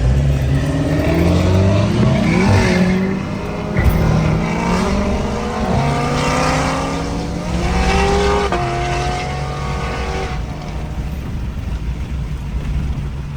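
Car engine accelerating hard, its pitch climbing and dropping back a few times, then settling to a steadier drone near the end.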